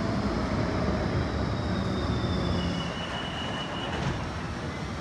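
Bombardier Flexity Outlook tram running through an underground station: a steady rumble of wheels on rails with faint high-pitched wheel squeal, one squeal tone sharper for about a second past the middle.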